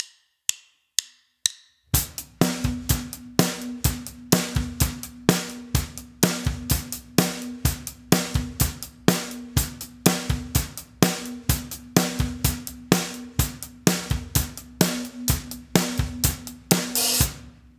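Acoustic drum kit playing an eighth-note beginner rock groove after four quiet count-in clicks half a second apart: closed hi-hat eighths, snare on 2 and 4, bass drum on 1, the 'and' of 2 and on 3, at about 120 BPM. It ends on a cymbal hit near the end.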